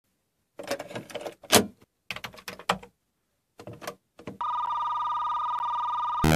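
Plastic clatter and clicks of a cassette being loaded into a Commodore Datasette and its lid snapped shut, then the clunk of the PLAY key pressed down. About four seconds in, a steady electronic tone starts. Just before the end, loud noisy synthesizer music cuts in.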